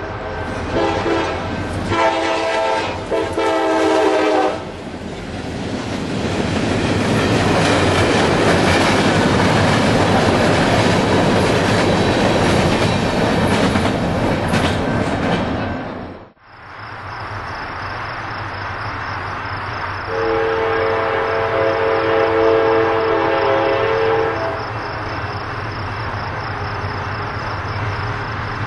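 Diesel locomotive's multi-chime air horn sounding several blasts at a grade crossing, then a freight train passing loudly with a steady rush of wheel and rail noise. After an abrupt cut, quieter train noise with another long horn blast from about 20 to 24 seconds in.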